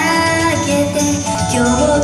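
Pop song with a female vocal melody over a backing track.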